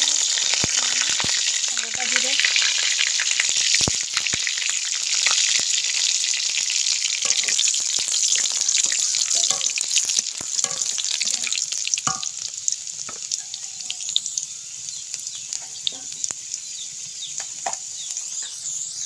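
Wet ground spice paste frying in hot oil in a kadai: a loud sizzle that gradually dies down as the paste is stirred. A metal spatula scrapes against the pan now and then.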